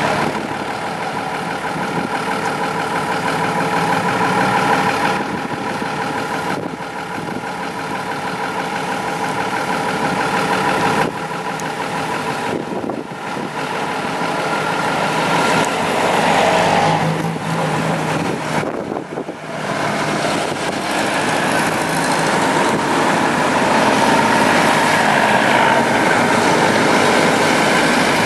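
Engines of old Mercedes-Benz Unimog trucks running as the trucks drive past one after another, growing louder in the last third as the next ones come close.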